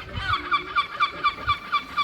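Gull calling in a fast run of short, pitched notes, about five a second.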